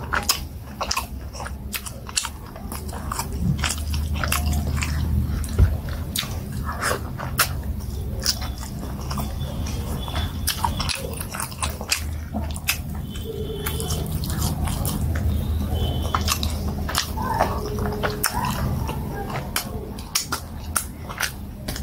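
Close-miked mouth sounds of a person eating plantain fufu and soup by hand: chewing, with many wet lip smacks and mouth clicks, and sucking on her fingers.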